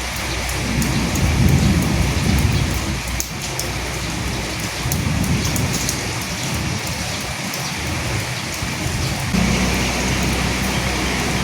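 Steady rain falling on leaves, with the fine patter of individual drops. Low rolling rumbles swell about a second in and again around five seconds.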